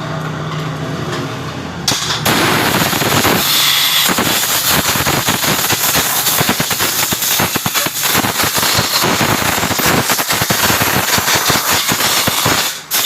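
Honda CD70 single-cylinder four-stroke engine running, then revved up loud from about two seconds in, with a rapid crackling run of exhaust pulses.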